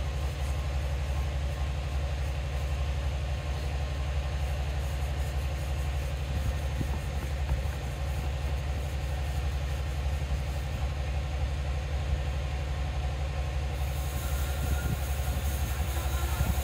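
Steady low drone of an engine or machine running without change, with a few faint scrapes of small trowels on wet cement.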